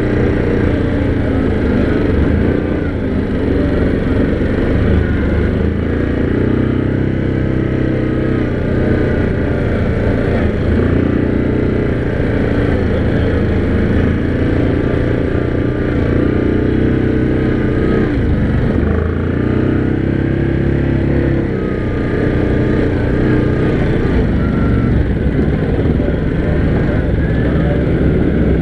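ATV engine running steadily under way, its pitch drifting gently up and down with the throttle.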